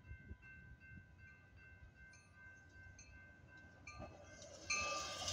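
Railroad grade-crossing warning bell ringing with steady repeated high dings. About four and a half seconds in, an approaching Metra push-pull commuter train, cab car leading, reaches the crossing and its rushing wheel-on-rail noise rises sharply.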